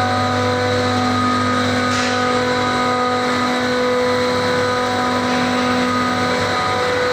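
Machinery in an HVAC chiller plant room running steadily: a constant hum with several fixed tones over an even mechanical whir.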